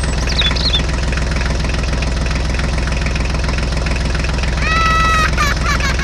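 Steady diesel-type tractor engine running at an even idle-like pace for the miniature tractor, with a short high-pitched tone about five seconds in.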